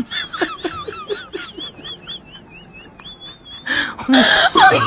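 High-pitched, rapid laughter, heard as a quick run of short rising-and-falling notes under a warbling high tone. Near the end it gives way to a noisy burst and a voice.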